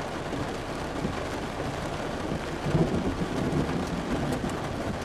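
Thunder rumbling after a nearby lightning strike, swelling about three seconds in, over a steady hiss of falling rain.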